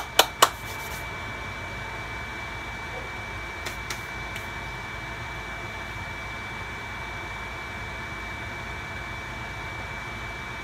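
Kitchen vent fan over the stove running: a steady whooshing hum with a thin, steady high whine. A few sharp clicks come right at the start, and two faint ticks about four seconds in.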